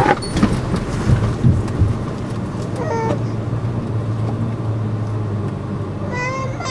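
Toyota FJ Cruiser's 4.0-litre V6 running at low speed as the truck crawls down a rough dirt trail. The body and suspension knock several times in the first two seconds. Short high-pitched squeals come about three seconds in and again near the end.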